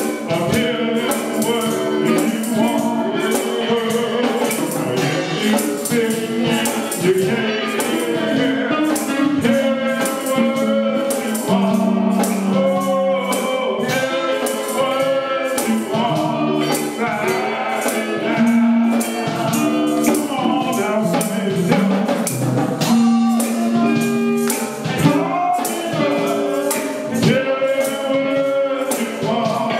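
Live gospel music: a tambourine shaking on a steady beat over instruments and singing voices.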